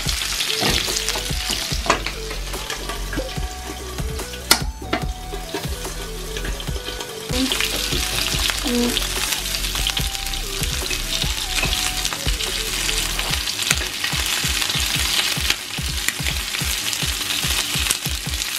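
Chicken pieces sizzling as they fry in oil in a non-stick grill pan. The sizzle grows louder about seven seconds in, and there are a couple of sharp clicks before that.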